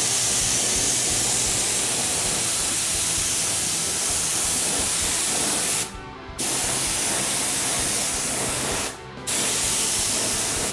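Small gravity-feed airbrush spray gun spraying paint: a steady air-and-paint hiss that cuts out briefly twice as the trigger is let off and pressed again.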